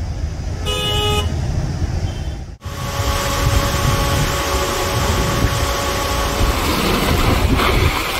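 Road traffic rumble with a vehicle horn sounding once, briefly, about a second in. After a cut, a louder steady rushing noise with a held tone running through it for a few seconds.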